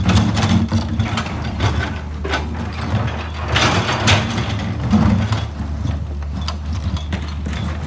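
Komatsu PC200-8 excavator's six-cylinder SAA6D107E-1 diesel running steadily, with irregular metallic clanks and scrapes as the bucket and its linkage work the rocky dirt.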